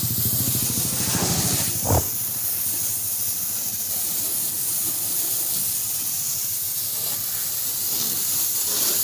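Water jet from a car-wash hose gun spraying over a car's body panels and rear glass, a steady hiss. A low hum runs under it for the first two seconds and ends with a short knock, then the spray goes on alone.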